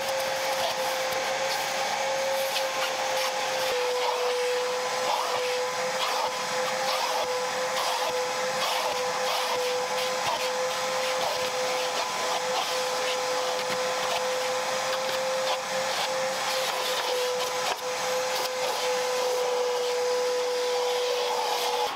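Kärcher vacuum cleaner running steadily with a constant motor whine, with scattered small clicks over it.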